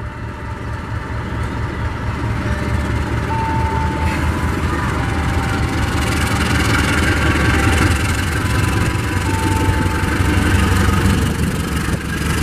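Diesel-electric locomotive engine throttling up as the passenger train pulls away from the station: a deep rumble that grows steadily louder, with a couple of short faint high tones.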